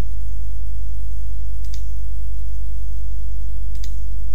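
Steady low electrical hum on the recording, with two short faint mouse clicks about two seconds apart.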